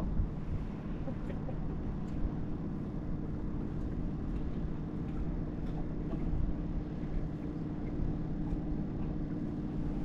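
A boat engine running steadily as a low, even hum, with wind rumbling on the microphone.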